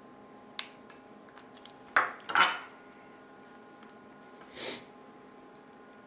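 Metal clatter of a putty knife and a steel-backed iPod being handled on a wooden tabletop while the case is pried open: a sharp click, then two loud metallic knocks close together about two seconds in, and a softer scrape near the end.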